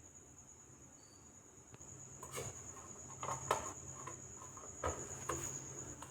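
A steady high-pitched trill like a cricket's over a low hum, with a handful of sharp knocks and clatters starting about two seconds in, the loudest about three and a half seconds in.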